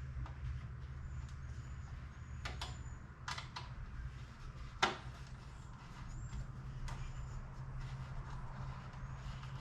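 Hand assembly of a cold-air intake: scattered light clicks and taps of a hex key and screws on the intake's filter-housing plates, with one sharper knock about five seconds in, over a steady low hum.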